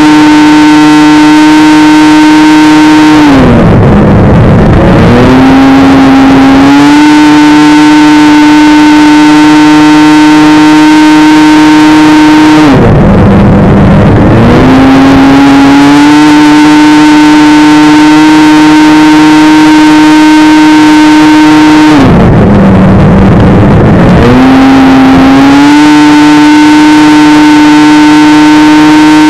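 Bickle Built Outlaw 600 race snowmobile's engine heard onboard at full throttle: a loud, steady, high-pitched drone held at constant revs. It drops away and turns rough three times, about 3, 13 and 22 seconds in, as the driver lifts and brakes for the turns, then climbs back to the same pitch.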